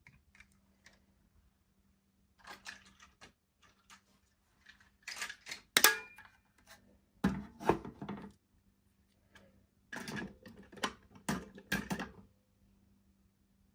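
Plastic toys and packaging being handled: scattered clicks, taps and light knocks in several short bursts with quiet pauses between them.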